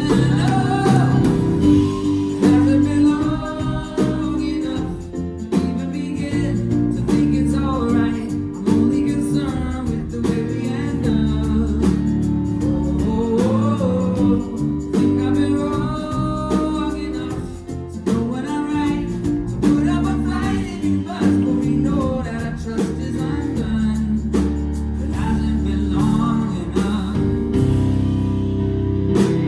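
Live band playing a pop-rock song: a male lead singer over guitar, bass and drums.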